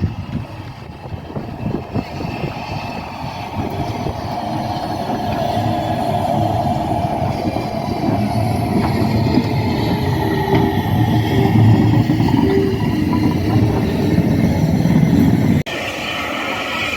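Steam train on the move, a rumbling that grows steadily louder for several seconds as it draws near. The locomotive is the Southern Railway Bulleid Battle of Britain class light pacific 34070 Manston. Near the end the rumble cuts off abruptly and a lighter, hissier sound follows.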